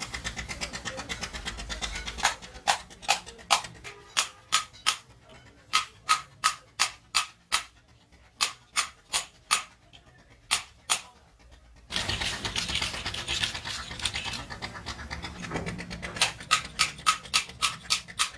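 Truck wheel tapered roller bearing clicking and tapping sharply as it is handled and cleaned by hand, in irregular runs of a few clicks a second. A stretch of hissy scraping comes in the middle.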